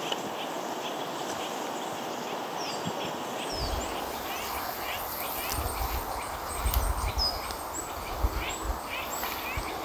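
Small woodland songbirds giving short, high, thin calls, with rapid ticking notes. From about three and a half seconds in, a low rumble of wind or handling on the microphone, with a few bumps.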